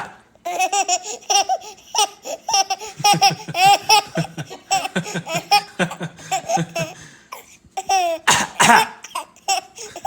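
Baby girl laughing in many short, high-pitched bursts at someone coughing, with a cough about eight and a half seconds in followed by more giggles.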